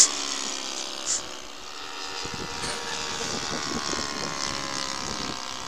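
Several radio-controlled model airplanes flying overhead, their motors and propellers making a steady drone of several tones that slowly fall in pitch. Two brief hisses come at the start and about a second in.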